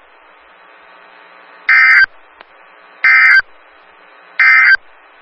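NOAA Weather Radio Emergency Alert System end-of-message code: three short, buzzy two-tone digital data bursts about 1.4 s apart, marking the end of the weekly test. Steady receiver hiss runs between the bursts.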